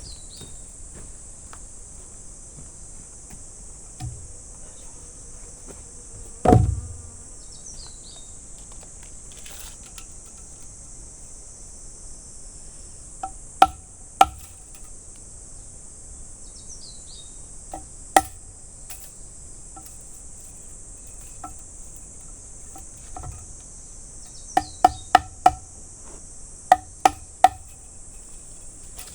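Steady high-pitched drone of insects with scattered sharp knocks. There is a heavy thud about six seconds in, then single knocks, and near the end two quick runs of four and three knocks.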